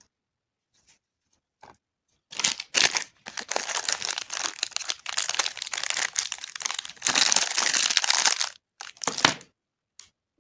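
A wrapper being crinkled and torn open by hand: a few faint ticks, then about seven seconds of continuous loud crinkling and tearing.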